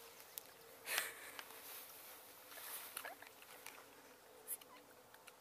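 Faint rustling and scuffing of people moving about, with one louder rustle about a second in and a few softer ones later, over a faint steady hum.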